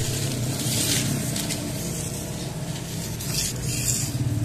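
Small plastic toy motorcycles being shuffled and pushed around in a heap on the floor, giving two spells of rustling clatter over a steady low hum.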